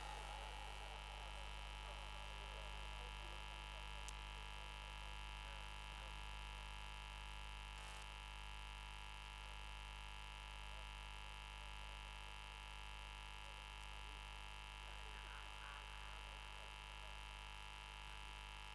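Steady electrical mains hum and buzz from a public-address sound system left open between recited verses, a deep hum under a set of higher steady tones. There is a faint click about four seconds in.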